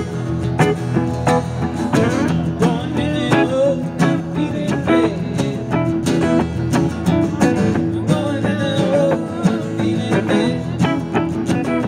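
Live guitar trio playing a country song: acoustic guitars strummed in a steady rhythm.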